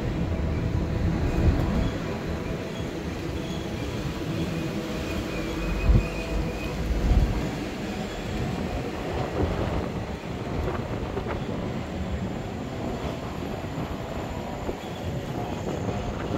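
Hop-on hop-off double-decker tour bus driving, its engine and road noise rumbling steadily as heard from the upper deck, with a couple of louder low bumps about six and seven seconds in.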